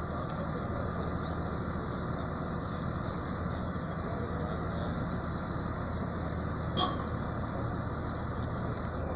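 Diesel engine of a truck-mounted mobile crane running steadily while the crane lowers its load, with one sharp knock about seven seconds in.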